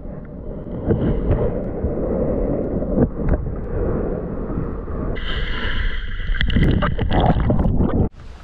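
Muffled underwater sound of lake water moving around a submerged action camera: a low rumbling wash with scattered knocks. From about five seconds in it turns to a brighter splashing hiss with sharp clicks as the camera comes up toward the surface.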